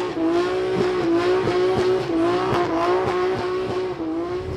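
A car's tyres squealing in one long, steady screech with a slight waver, the car's engine held at high revs underneath.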